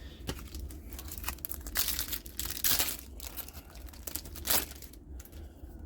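A trading-card booster pack wrapper being handled and torn open, in irregular bursts that are loudest about two and a half seconds in and again near four and a half seconds.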